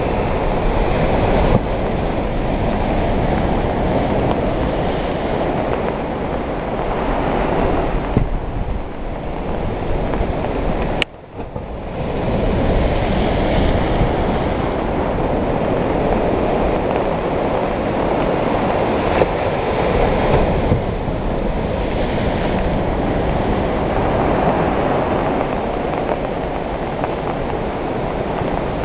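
Sea surf washing onto a sandy beach, a steady rumbling rush of waves, with a brief drop-out about eleven seconds in.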